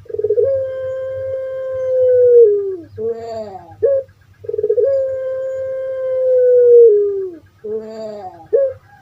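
Puter pelung dove (Streptopelia risoria) calling. A long drawn-out note is held about two and a half seconds and drops in pitch at its end. It is followed by a quick run of short gliding notes. The pattern repeats, and a third long note begins near the end.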